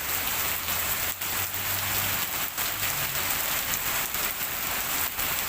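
Heavy rain falling steadily, a dense, even hiss of drops with a few very brief dips in level.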